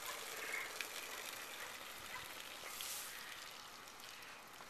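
Highland cow urinating, the stream splashing onto muddy ground and fading as it tapers off.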